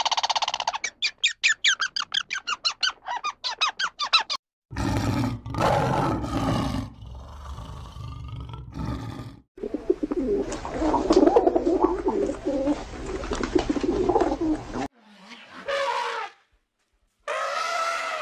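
A run of different animal calls, one after another. A squirrel gives a fast chirping chatter for the first four seconds. Pigeons coo as a flock from about ten seconds in to about fifteen.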